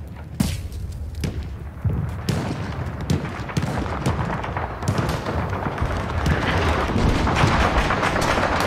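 A battle soundscape: scattered gunshots and booms over a low rumble, the firing growing denser and louder toward the end.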